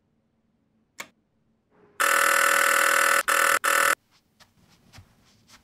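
A single click, then an electric doorbell rings loudly for about two seconds, broken twice briefly near the end. Faint footsteps follow.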